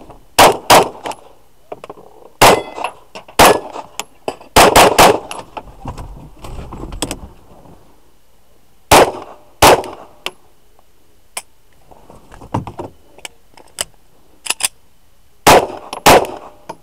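Glock pistol fired from inside a car out through the open window: about a dozen loud shots in pairs and quick strings. A few seconds of fainter knocks come between the strings, and a last pair of shots falls near the end.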